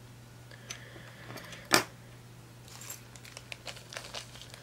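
Small handling sounds at a fly-tying bench: a few light clicks and one sharp tap nearly two seconds in, like a small metal tool set down, then light rustling and crinkling of materials.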